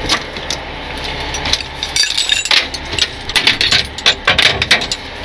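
Steel tow chains clinking and rattling as they are handled and hung on hooks inside an aluminium truck toolbox, a run of quick metallic chinks, over a low steady hum.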